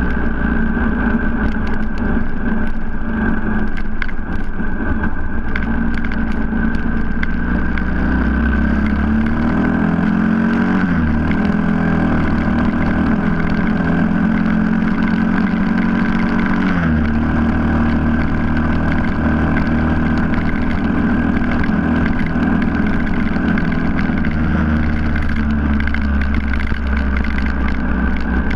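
Cagiva W16's single-cylinder four-stroke engine running under way at road speed, with rumbling wind noise on the microphone. The engine note shifts up and down between about 9 and 17 seconds in as the speed changes, then settles.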